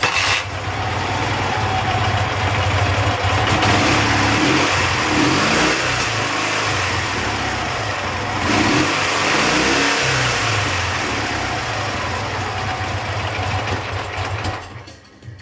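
Dnepr MT 10-36 motorcycle's two-cylinder boxer engine running, revved up and back down twice around the middle. It is being set up at the carburettors because it runs unevenly.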